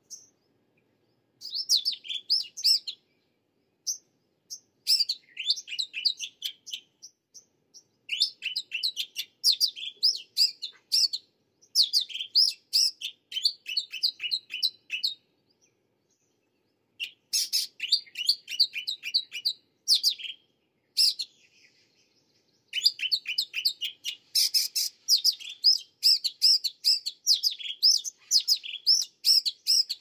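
Jungle babblers chattering in bursts of rapid, high repeated notes, each burst lasting one to three seconds with short gaps between; the calling runs almost without a break over the last several seconds.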